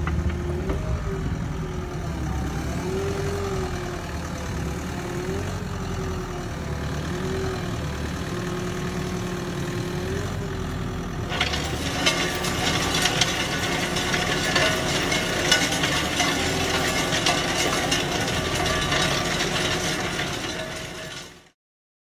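Excavator engine running, with a tone that wavers in pitch, as the screening bucket works. About eleven seconds in, a louder rattling clatter of soil and stones starts, as sifted soil pours out through the bucket.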